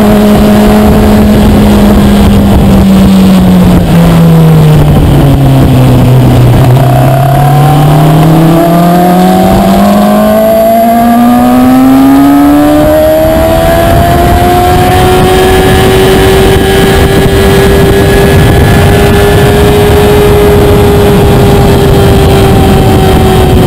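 Onboard sound of a Kawasaki ZX-6R 636's inline-four engine on track: the note drops as the bike slows for a corner, climbs steadily under acceleration on the way out, then holds a steady note on the straight. Heavy wind rush on the microphone runs underneath.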